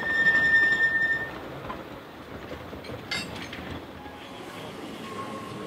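Narrow-gauge steam-hauled train running past, with a high steady squealing tone in the first second that then stops. Even running noise follows, with a single sharp click about three seconds in.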